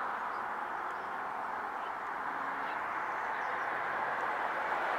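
Steady hum of distant road traffic, with a few faint bird chirps over it.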